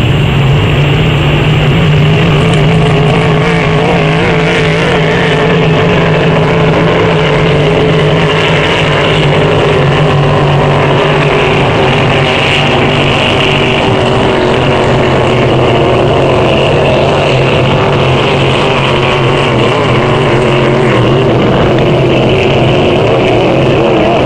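Racing hydroplane engines running flat out in a steady, loud drone.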